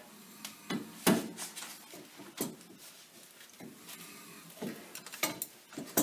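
A gear puller being worked on a seized Jeep Wrangler YJ Dana 30 front hub: a handful of irregular, sharp metal clicks and clunks from the tool on the puller's forcing screw as it draws the fused hub off the axle. The loudest click comes about a second in.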